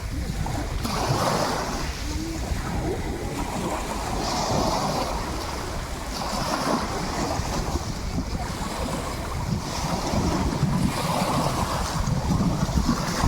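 Sea waves washing in and out, rising and falling every few seconds, with wind buffeting the microphone.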